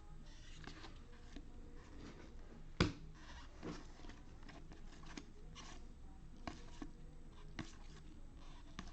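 Football trading cards being handled and flipped through one at a time: soft sliding and flicking of card stock, with one sharper tap about three seconds in.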